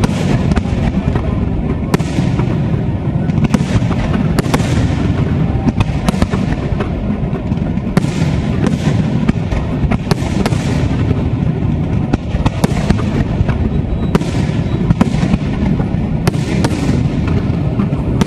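Large fireworks display going off without a break: a dense, continuous din of launches and bursts, with sharp bangs cutting through about once or twice a second.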